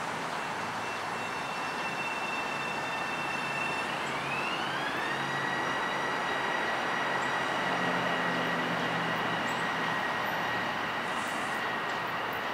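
Metro-North electric multiple-unit train accelerating away, its traction motors giving a high steady whine over a rush of running noise. The whine slides up in pitch about four seconds in and then holds at the higher note.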